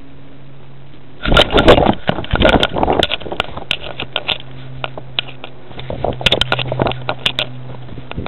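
A cat walking and scrambling across a plastic tarpaulin, heard close up from a collar-mounted camera. The tarp crackles and rustles under its paws, with scrapes and sharp clicks. This starts about a second in and comes in two busy spells, over a steady low hum.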